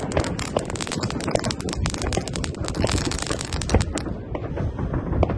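New Year's Eve fireworks and firecrackers going off all around: a dense crackle of many rapid bangs over a constant rumble, thinning to scattered booms about four seconds in.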